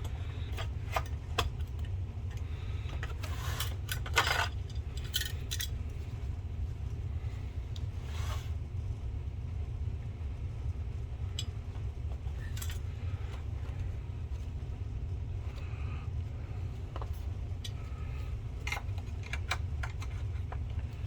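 Scattered clicks, taps and scrapes of hard plastic and metal parts being handled as a replacement lamp is fitted into an Optoma HD141X projector, with a steady low hum underneath. A cluster of louder knocks comes about four seconds in.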